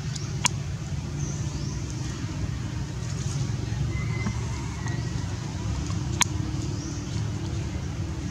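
Steady low rumble with two sharp clicks, one just after the start and one about six seconds in.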